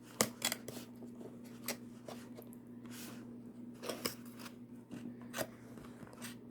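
Scattered clicks, taps and a short rustle of a phone and its cardboard return box being handled and packed.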